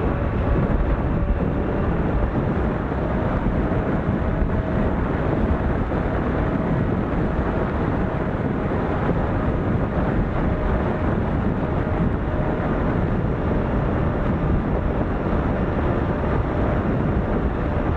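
Steady rush of airflow and propeller noise from a camera aboard an Eachine AtomRC Killer Whale twin-motor FPV plane in cruising flight, with a faint motor whine coming and going.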